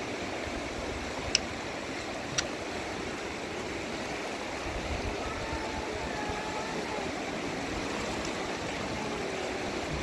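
Steady rush of flowing stream water, with two sharp clicks about a second apart, roughly one and a half and two and a half seconds in.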